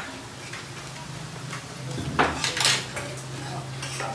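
Spoons and forks clinking against plates and bowls as several people eat at a table, with a couple of sharper clatters about two seconds in, over a steady low hum.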